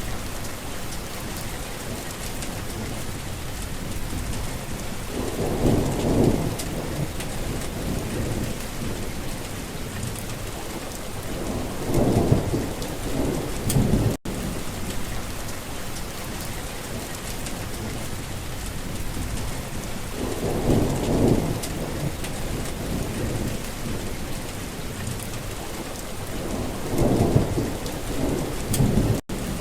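Thunderstorm: steady heavy rain hissing, with four low rolls of thunder swelling and fading about seven seconds apart. The rain cuts out for an instant twice.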